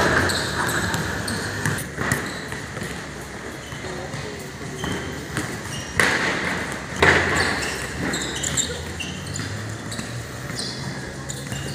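Basketball game: a ball bouncing and thudding on a hard court, with loud knocks about 2, 6 and 7 seconds in, and short high squeaks among the players' voices.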